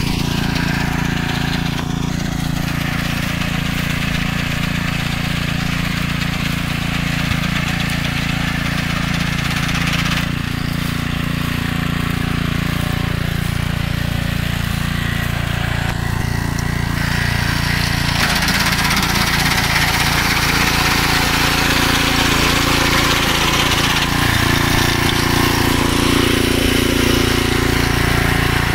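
Small Honda engine of a VST Shakti 5PR walk-behind paddy reaper running steadily under load while it cuts rice stalks. The sound grows louder and brighter about two-thirds of the way through.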